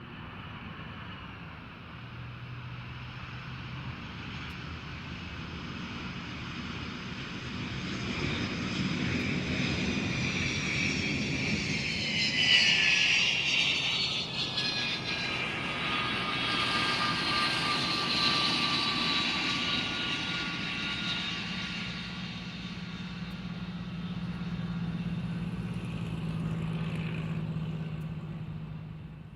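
Jet aircraft landing: engine whine and rumble build steadily and are loudest about twelve seconds in, after which the high whine slides down in pitch while the rumble carries on, fading out at the end.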